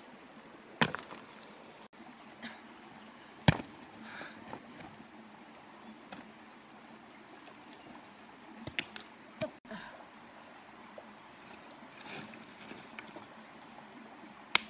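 A few sharp knocks of rock set down on rock, the loudest about three and a half seconds in, over the faint steady trickle of a shallow stream.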